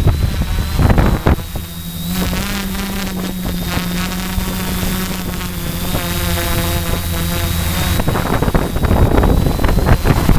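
Motors and propellers of a DJI 450-clone quadcopter, heard through the onboard GoPro: a steady hum with a high whine. Wind buffets the microphone at the start and again near the end.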